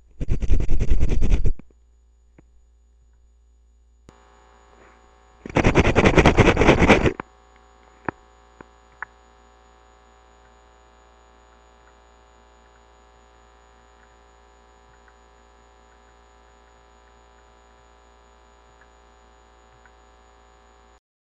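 Toothbrush bristles scrubbing teeth, picked up close by a microphone built into the toothbrush: a short burst of brushing at the start, played back unfiltered at normal level, then a second short burst about five seconds later. A steady low mains hum runs under the rest.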